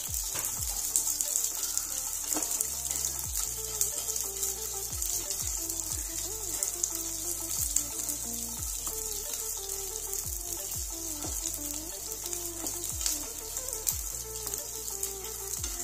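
Sliced onions, green chillies and chana dal sizzling and crackling in hot oil in a frying pan, stirred now and then with a wooden spatula.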